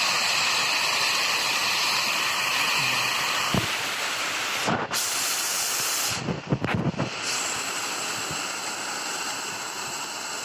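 Steady rushing of a waterfall pouring down a hillside, with a few brief knocks near the middle.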